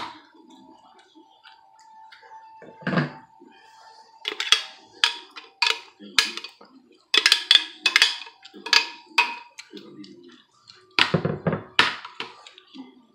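A spoon knocking and scraping against a large bowl while chile marinade is spooned over a raw turkey, with many short clicks clustered in the second half.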